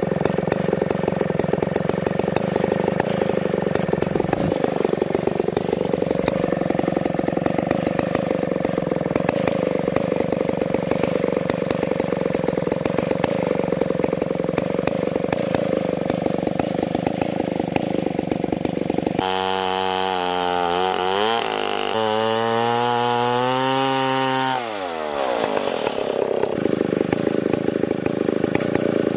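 137 cc Stihl 090 chainsaw mounted in a Granberg Alaskan mill, running at high revs. About two-thirds of the way in the sound turns into a clear whine that rises, holds, then drops away a few seconds later, before the rougher running sound returns.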